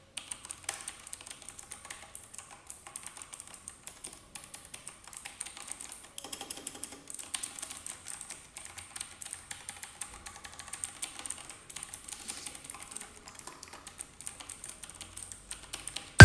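Typing on a Sunsonny SK-K1 mechanical keyboard: a quick, uneven run of clicking keystrokes.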